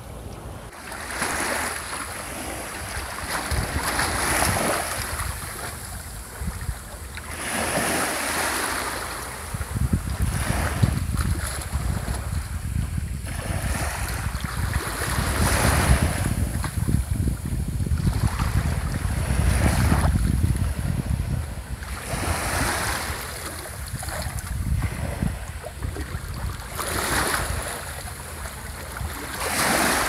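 Small waves breaking and washing onto the shore, each surge swelling and fading every three or four seconds. Wind rumbles on the microphone through the middle stretch.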